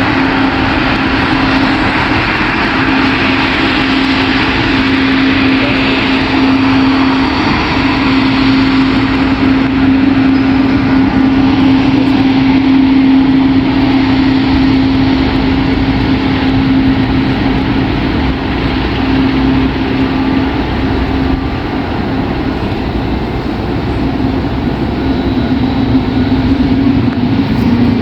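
Embraer 195-E2 jet airliner on its takeoff run, a steady jet roar carrying a sustained humming tone that wavers slightly: the E2's well-known 'whale' sound.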